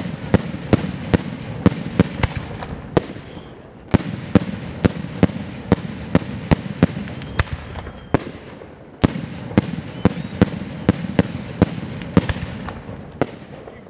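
Daylight fireworks: aerial shells bursting overhead in quick succession, loud sharp bangs about two or three a second over a continuous rushing noise. The barrage comes in three runs of about four seconds each, with a short lull between them.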